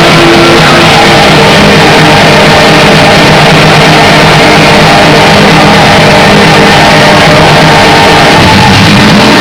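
Loud music, heavily distorted and clipped by an overloaded camera recording.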